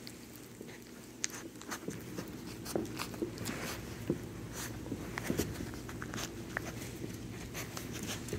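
Labradoodle puppies licking, mouthing and nibbling at a hand and shuffling against it: scattered, irregular soft clicks, smacks and taps.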